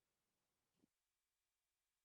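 Near silence, with one very faint, brief sound just under a second in.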